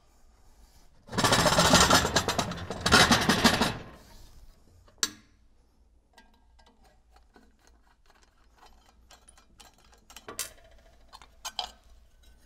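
Loud metal-on-metal scraping and grinding, in two pushes lasting about three seconds together, as the heavy stainless pump is turned on its base on the bench. Afterwards come faint ticks of a screwdriver working the coupling guard's screws, and a few light metal clinks near the end as the sheet-metal guard comes off.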